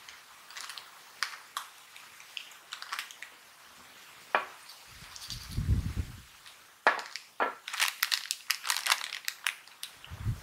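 Crisp crackling and crinkling of a plastic corn-chip bag and the chips being handled, sparse at first and dense for the last few seconds, with a couple of low thuds.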